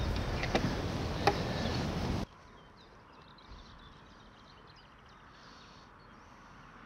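Wind buffeting the microphone, with a few sharp clicks, cuts off abruptly about two seconds in. It gives way to a quiet background with faint, high chirping.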